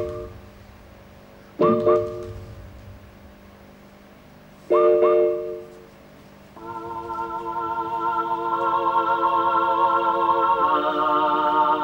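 Dance music: two short, loud chords about three seconds apart, each followed by a pause, then a sustained chord of wavering held notes that swells in about halfway through and stays loud.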